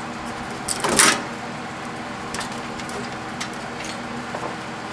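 Hands working on the inside of a microwave oven being taken apart for scrap: one short scraping rustle about a second in and a few light clicks, over a steady low hum.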